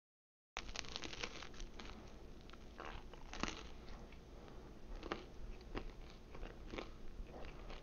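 A person chewing a bite of baked frozen pizza with crisp crust, making a run of irregular crunches. The sound cuts in abruptly about half a second in, after dead silence.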